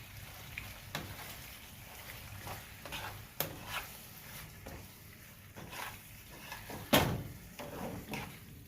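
A utensil stirring pasta in cheese sauce in a pan, with scattered light scrapes and clicks against the pan and one louder knock about seven seconds in.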